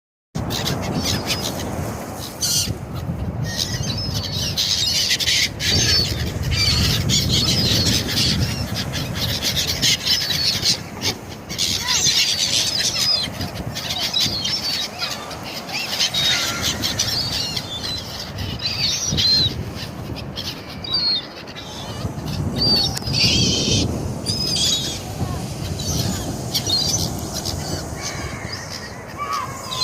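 A flock of gulls calling continuously, many overlapping high-pitched cries, over a steady low rumble.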